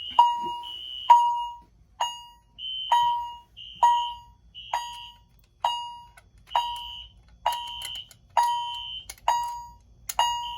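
Fire alarm chime striking steadily, a ringing ding that fades about once every second. A higher, shorter alarm tone sounds between some of the strikes. The system is in alarm from a pulled pull station.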